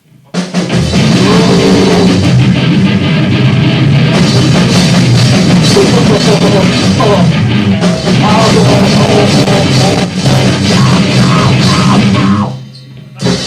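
An amateur band playing a short burst of loud, distorted noise-punk with a pounding drum kit. It starts abruptly, stops sharply about twelve seconds in, and then gives one short final blast.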